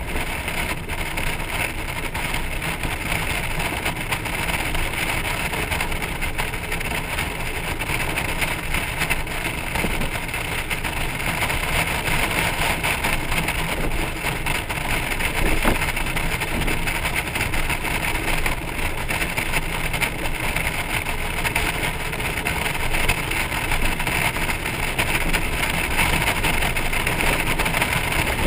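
Steady road and wind noise of a Honda Gold Wing motorcycle and its towed trailer cruising at road speed.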